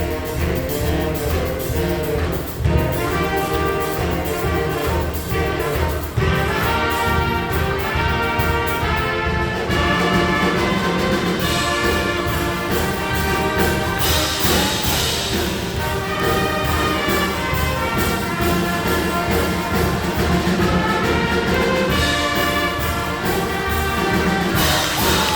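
A band playing a tune with loud brass (trumpets and trombones) over a steady drum beat.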